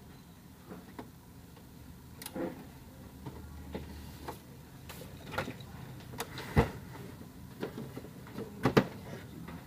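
HP LaserJet Pro M225dw laser printer being worked on: scattered sharp clicks and knocks of its plastic parts, the loudest two close together near the end, with a low motor hum for a couple of seconds in the middle.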